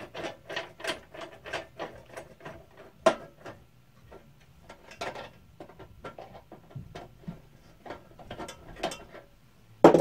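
Irregular small metal clicks and rattles as the hold-down foot of a Central Machinery 16-inch scroll saw is unscrewed and taken off, with a sharper knock about three seconds in and a louder knock near the end.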